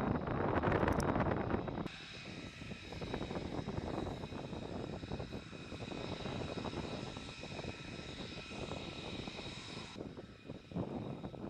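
F-35B Lightning II's jet engine heard in flight: a rumbling roar at first, then from about two seconds in a steady high-pitched turbine whine over the roar that cuts off suddenly near the end.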